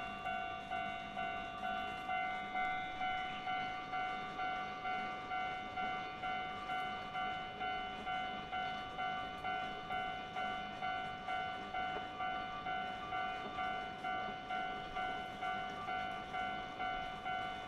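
Railroad level-crossing warning bell ringing in an even repeating pattern, about two strikes a second.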